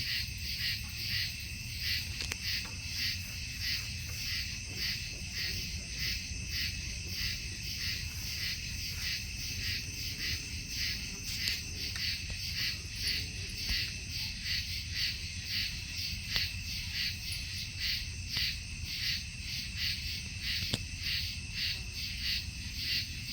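A chorus of night insects trilling in steady rhythmic pulses, about two to three a second, over a low steady rumble.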